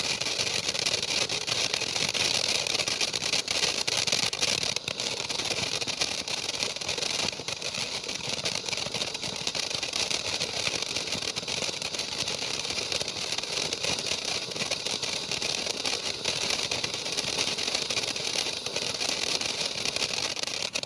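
Kimbolton 'Glittering Gemstones' firework burning with a steady, dense hiss and crackle, which cuts off sharply at the end as the firework finishes.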